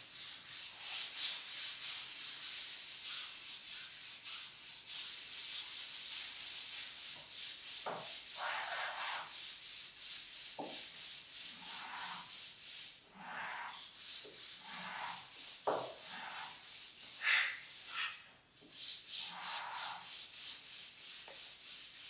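Lacquer spatulas (chil-jugeok) being sanded by hand on 220-grit sandpaper laid flat, a rapid back-and-forth rasping of about four strokes a second. The strokes stop briefly twice.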